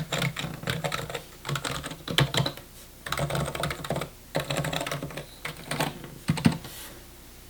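Typing on a mechanical keyboard set up with R2 damping and a travel sheet: quick runs of keystrokes broken by short pauses, stopping shortly before the end.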